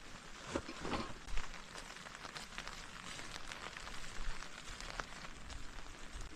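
Rain falling steadily: a constant hiss with many separate drop hits, and a few louder knocks about a second in.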